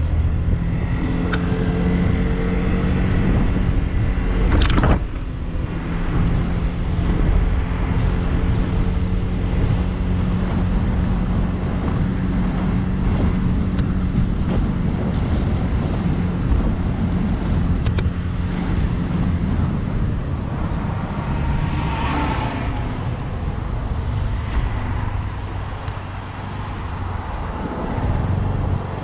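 A 100cc motorcycle engine running at a steady riding speed, heard from the rider's seat. The engine note eases off after about twenty seconds as the bike slows. There is one sharp click about five seconds in.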